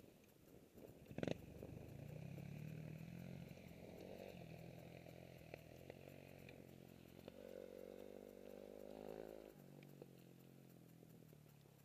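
Faint dirt bike engine running at low revs, its pitch shifting and rising for a couple of seconds past the middle, with a sharp knock about a second in.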